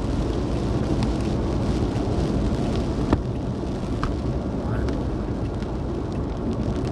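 Steady low rumble of a vehicle driving, road and wind noise. Two short sharp clicks come about three and four seconds in.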